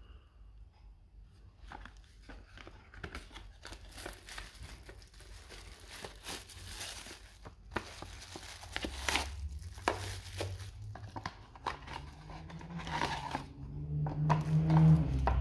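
Cardboard box being opened and plastic packaging handled: irregular crackles and rustles. A low hum swells near the end.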